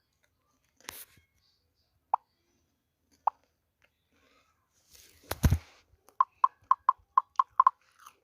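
Short hollow pops, a couple spaced about a second apart, then a quick run of about eight; a heavy thump comes just before the run.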